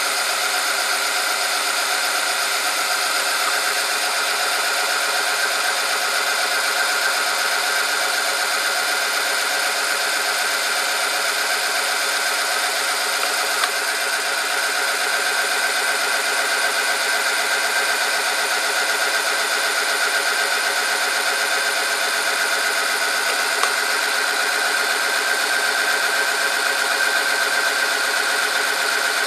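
Electric motor of a bench oil-film strength test machine running steadily, its turning shaft grinding against a metal test sample in engine oil heated to about 100 °C under a weighted lever. It makes a steady whine with a strong high tone. Two light clicks come about halfway through and again about ten seconds later, as weights are set on the load arm.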